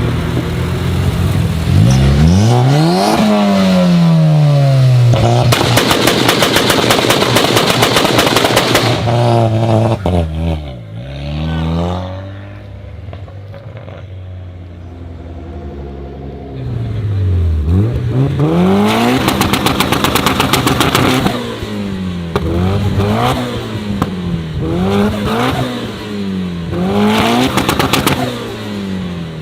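Car engine with a modified exhaust revved hard, its pitch climbing and falling back, each big rev followed by a fast rattle of exhaust crackles and pops. It settles to a quieter idle around the middle, then gets a quick series of short throttle blips with more crackling near the end.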